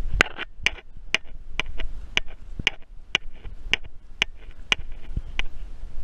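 Footsteps of someone walking at a steady pace: sharp, even steps about two a second, over a low steady rumble.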